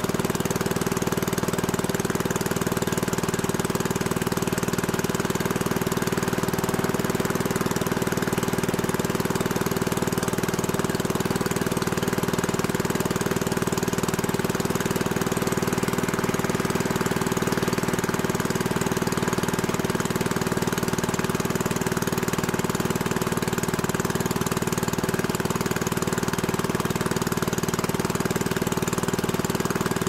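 Motorcycle engine idling steadily at an even speed, with no revving.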